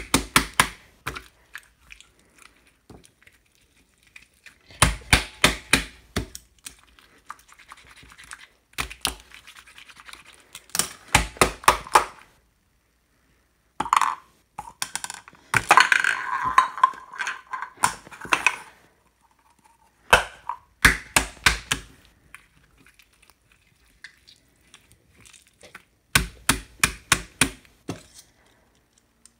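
Blue slime being squeezed and kneaded by hand, giving runs of quick sticky popping clicks in short bursts with pauses between, and a longer squelching stretch about halfway through.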